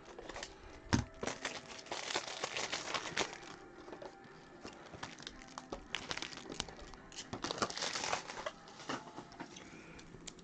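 Trading-card packaging crinkling and tearing as packs are opened and cards handled, in two spells of crackling, with a soft thump about a second in.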